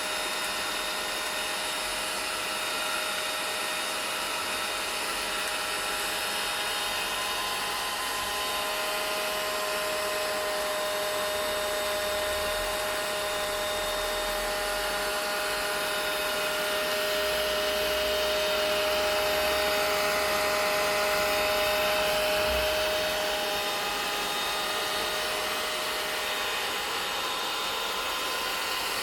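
Vacuum cleaner running steadily: a continuous rushing motor noise with a few steady whining tones, swelling slightly louder for a few seconds past the middle.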